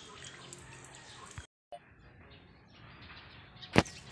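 Faint outdoor background with birds chirping, cut off briefly about one and a half seconds in, and a single sharp click near the end.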